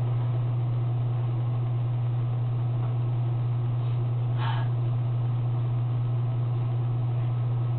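A steady low hum, with a brief faint rustle about four and a half seconds in.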